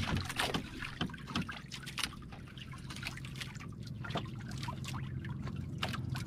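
Water trickling and lapping around a small outrigger boat's hull, with a few sharp clicks and knocks in the first two seconds from the handling of plastic food containers.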